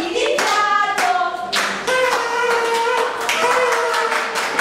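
Voices singing a song with hands clapping along in a steady rhythm. A long, steady held tone comes in about two seconds in.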